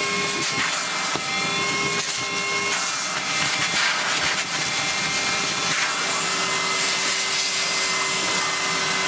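A vacuum cleaner motor running steadily with a constant hum, with scratchy sucking noises as it pulls carbon dust off a filter.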